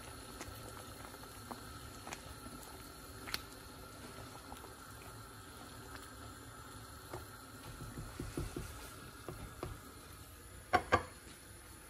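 Chicken and kidney-bean curry simmering in a frying pan while it is stirred with a spatula: soft bubbling with a few light clicks and scrapes, and a couple of louder knocks near the end.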